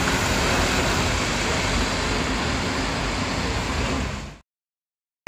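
Buses passing on a rain-soaked road: a steady hiss of rain and tyres on wet tarmac over a low engine rumble. It fades out about four seconds in, leaving complete silence.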